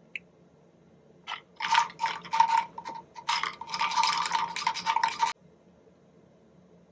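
Small model-locomotive parts rattling and clinking against each other and a container in isopropyl alcohol as they are cleaned, a quick run of clatters lasting about four seconds with a ringing note from the container.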